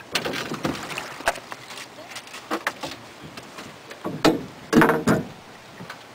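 Oars knocking and clunking in their oarlocks on an aluminium drift boat as the guide rows: irregular knocks, loudest about four to five seconds in.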